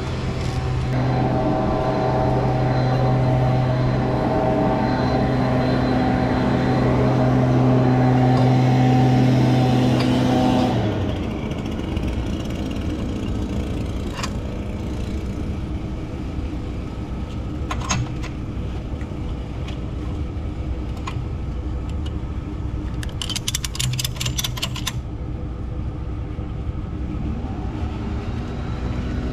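Rollback tow truck's engine running at raised speed for about eleven seconds while the car is drawn up the tilted bed, then dropping back to a steady idle. Later come a few metal clicks and a quick run of ratchet clicks as a wheel strap is tightened over the tyre.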